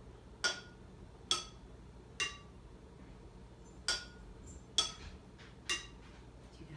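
Metal spoon tapping water-filled glass jars, tuned to different pitches, to play a melody: six ringing notes in two groups of three, each group stepping down in pitch.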